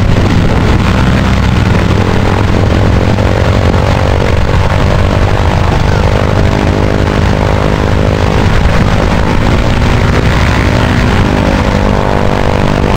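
Vultee BT-13 Valiant trainer's radial engine running at low power while taxiing, a loud, steady engine note with its propeller turning.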